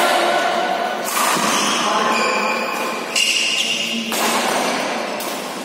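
Badminton rally: rackets hitting the shuttlecock, sharp strikes about once a second, with short higher-pitched sounds between them.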